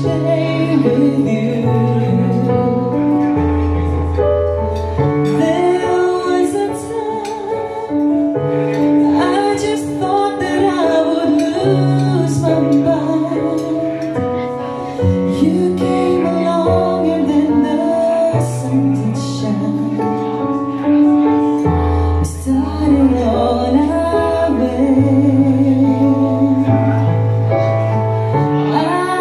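A woman singing a slow song live into a handheld microphone over a backing track, amplified through a PA speaker, her voice carrying a large-hall reverb effect from the sound mixer.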